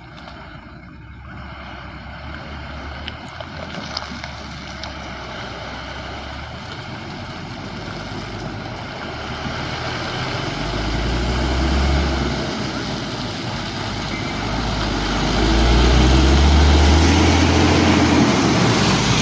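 Hino truck's diesel engine growing steadily louder as the truck approaches. A deep rumble swells about ten seconds in and is loudest over the last few seconds.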